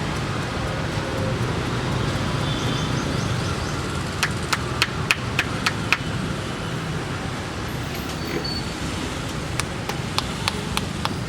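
Steady street traffic noise, with two quick runs of sharp hand slaps from a percussive head massage, about four a second: half a dozen or so about four seconds in, and another run near the end.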